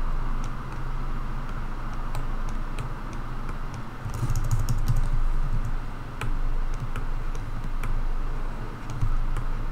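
Irregular clicks of computer keys and a mouse, with a denser run of clicks about four seconds in, over a steady low electrical hum.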